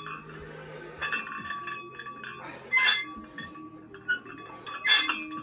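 Weight plates clinking and rattling on an EZ curl bar as it is curled, with a few louder bursts about one, three and five seconds in.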